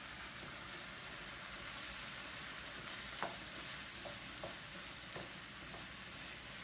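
Pepper sofrito sizzling in a frying pan as it is stirred with a wooden spatula, a steady hiss with a few light taps and scrapes of the spatula against the pan.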